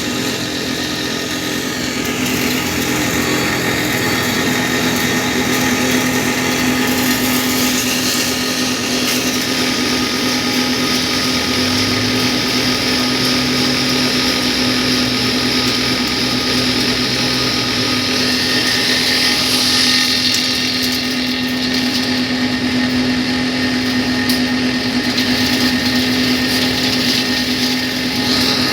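A road-repair machine's engine running steadily, with a constant hum and a high hissing whine that shifts in pitch a couple of times.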